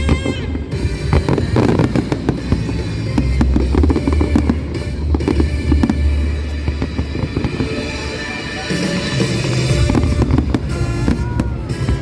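Aerial fireworks bursting and crackling again and again, over loud music with a heavy bass played for the show.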